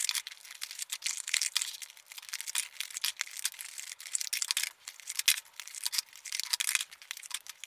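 Small cardboard puzzle-cube boxes and their packaging being handled and opened: rustling and crinkling with many light clicks and taps as the plastic cubes are taken out and set down.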